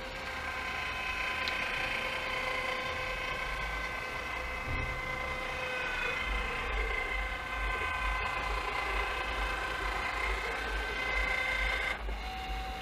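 DeWalt DCE580 cordless caulking gun running at speed 2, its motor and drive giving a steady whine of several even tones as the plunger pushes sealant out of the tube. It stops near the end.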